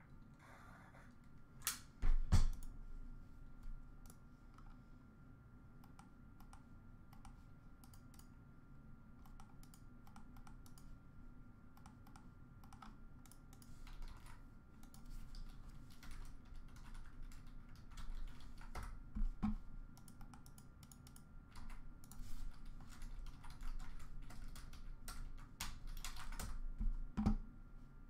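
Computer keyboard being typed on in irregular runs of key clicks, with a few louder knocks: one about two seconds in, one past the middle and one near the end.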